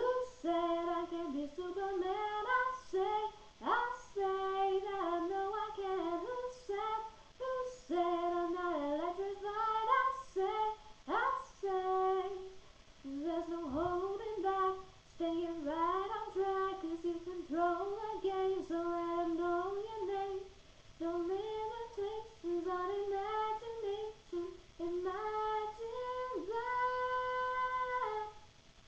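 A girl singing unaccompanied, a melody in phrases with short breaths between them, ending on a long held note near the end.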